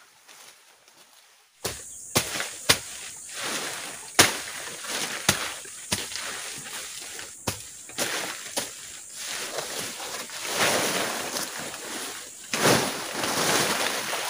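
Leafy branches and brush being pulled up, handled and tossed onto dry leaf litter: loud rustling of leaves with repeated sharp snapping cracks. It starts suddenly a little under two seconds in and gets denser and louder toward the end.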